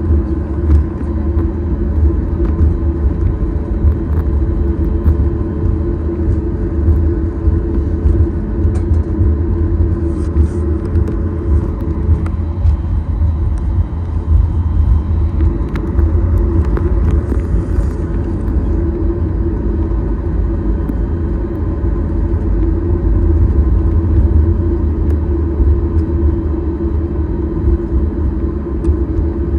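Steady cabin rumble inside a Boeing 737-8 MAX, with the hum of its CFM LEAP-1B engines running.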